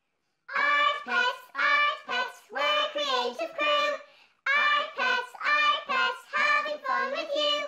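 A high, child-like voice singing the opening lines of a theme song, with no instruments heard. Two phrases of short separate notes are split by a brief pause about halfway through.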